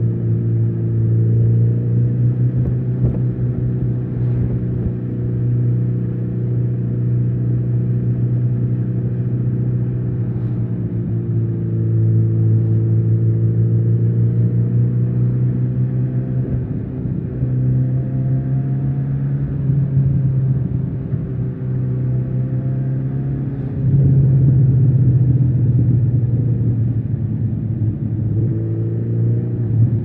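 Kawasaki Z900RS inline-four engine running at steady cruising revs, the pitch easing down and back up a few times with the throttle, and louder for a stretch near the end.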